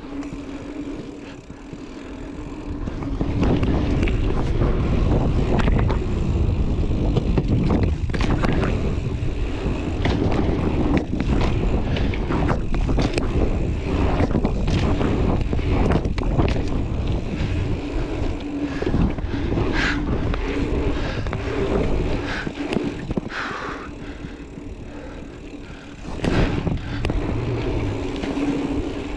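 Wind buffeting the microphone while a mountain bike rolls fast along a dirt flow trail, with the tyres rumbling on the packed dirt and knocks and rattles as the bike goes over the bumps and berms. It gets louder about three seconds in and eases near the end, where a steady hum is heard.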